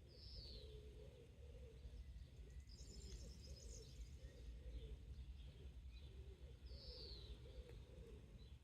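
Faint rural ambience: birds calling over a low, steady rumble, with a low, repeated pulsing call through most of it, a short high descending chirp near the start and again near the end, and a brief high trill about three seconds in.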